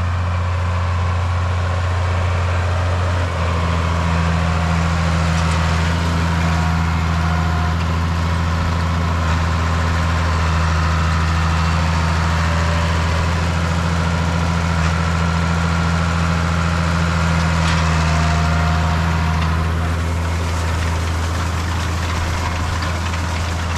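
Tractor engine running at a steady speed, its low note shifting slightly about three seconds in and then holding steady.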